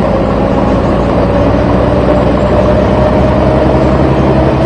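Truck engine running steadily, its pitch rising a little over a few seconds.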